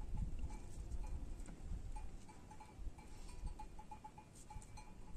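Bells on a grazing flock of sheep clinking faintly and irregularly, over a low, uneven rumble.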